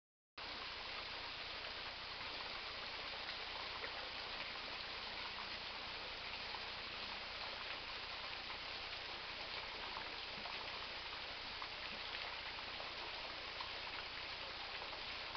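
Small waterfall splashing steadily: an even rush of falling water with small spattering ticks, starting after a moment of dead silence at the very beginning.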